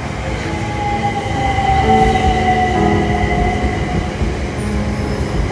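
Class 377 Electrostar electric multiple unit running past the platform: the traction motors whine, falling steadily in pitch, over a rumble of wheels on the rails.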